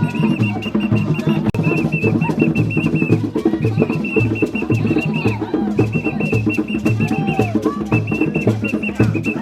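African drum ensemble playing a fast, steady rhythm, a deep drum beating about twice a second under quick sharp strokes. A high steady tone sounds in repeated stretches over the drums.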